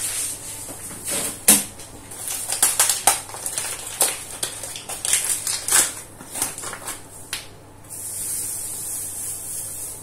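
A sugar bag being handled, with crinkling and sharp clicks through the middle, then granulated sugar pouring from the bag into a plastic yogurt pot as a steady hiss over the last two seconds.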